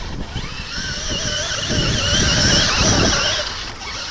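Traxxas E-Maxx electric RC monster truck running on a 3S battery, its motors whining high, the pitch wavering up and down with the throttle, over wind buffeting the microphone.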